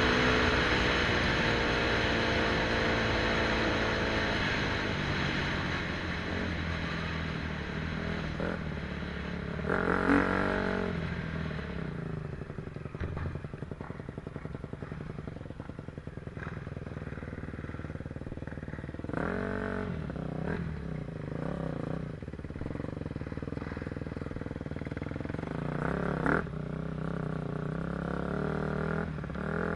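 KTM 250 SX-F's single-cylinder four-stroke engine running under way, loud at first, then easing to a lower, steadier note. It gives three short blips of throttle, about ten, nineteen and twenty-six seconds in.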